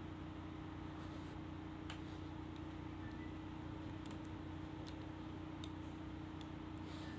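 Faint, sharp little clicks of fingers handling a 1:43 diecast model car around its bonnet, a few scattered through, over a steady low hum.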